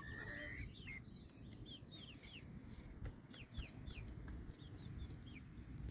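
Young chickens peeping: a string of short, high chirps, each sliding down in pitch, repeating every fraction of a second.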